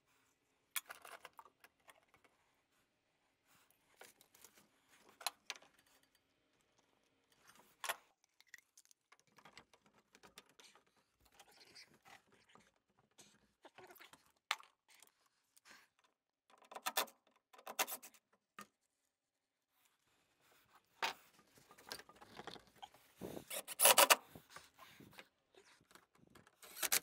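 Scattered clicks, taps and rubbing from handling PVC drain pipe and fittings while priming and gluing them, then quick hammer strikes in the last few seconds, the loudest sounds here.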